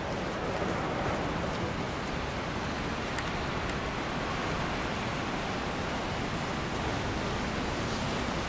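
Steady outdoor city ambience: an even wash of traffic noise with no distinct events.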